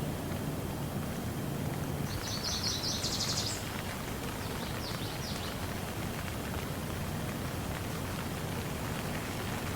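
Steady rain falling. About two seconds in, a bird sings a quick trill of rapid high notes, followed by a few short high chirps.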